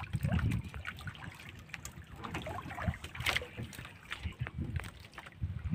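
Wet fishing net being hauled by hand over the side of a small boat: water dripping and splashing off the mesh, with scattered light clicks and a few low knocks against the boat.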